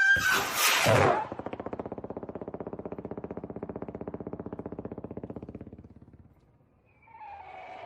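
Fireworks: a whistle ends in a loud bang in the first second. Then comes a rapid, evenly pulsing buzz that fades away over about five seconds, and a new whistle starts near the end.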